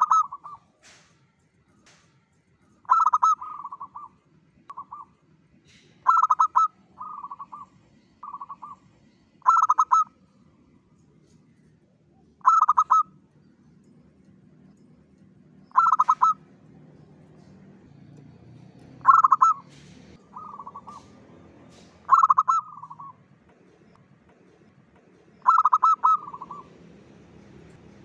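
Zebra dove (perkutut) cooing in full song: a short, rapid, stuttering coo phrase about every three seconds, several of them trailed by a few softer short notes.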